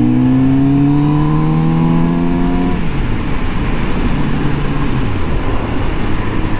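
Kawasaki Z900RS inline-four motorcycle engine pulling up through the revs under acceleration. The throttle closes about three seconds in and the engine note falls away, giving way to wind noise on the microphone, with another drop in revs a couple of seconds later.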